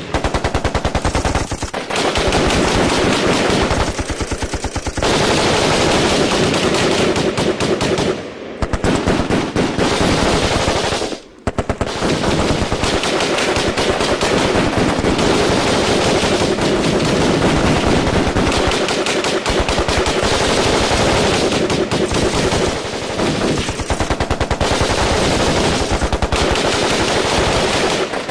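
Automatic gunfire in an exchange of fire: rapid, nearly continuous bursts of shots, with two short lulls about eight and eleven seconds in.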